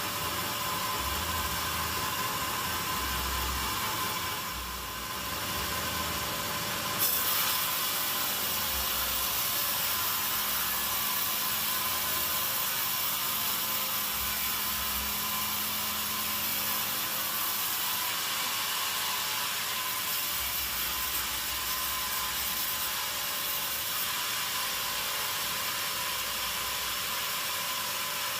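Sawmill saw running and cutting teak wood, a continuous steady sound with a thin whine in it. It dips briefly about five seconds in, and a harsher high hiss comes in at about seven seconds and eases off at about eighteen.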